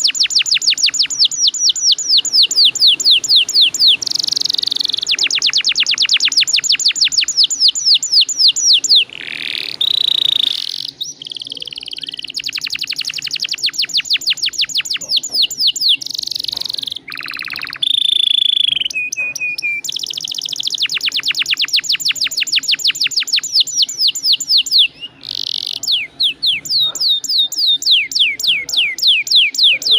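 Domestic canary singing a long rolling song: fast trills of rapidly repeated high notes, each run held for several seconds, broken now and then by short whistled and buzzy notes.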